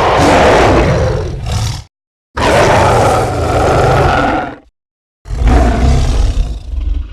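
Three separate giant-ape creature roars made as sound effects for Gigantopithecus, each about two seconds long, with short silent gaps between them.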